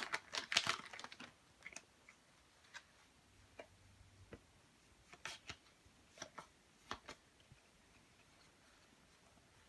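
Pokémon trading cards and their foil pack wrapper being handled. A short burst of crinkling at the start, then scattered light clicks and taps of cards being shuffled and set down, fading out about two-thirds of the way through.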